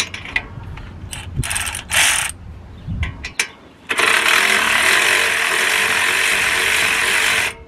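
A 3/8-inch 12-volt cordless ratchet wrench spinning a brake caliper bolt loose. It runs in two short spurts about a second and a half and two seconds in, then steadily for about three and a half seconds from four seconds in, with a few light clicks of the socket early on.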